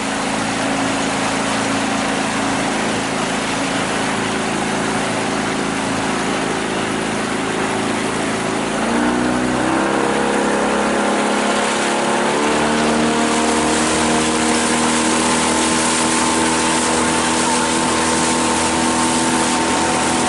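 Outboard motor driving a boat, its engine pitch stepping up twice, about nine and twelve seconds in, as the throttle is opened, over a steady rush of noise.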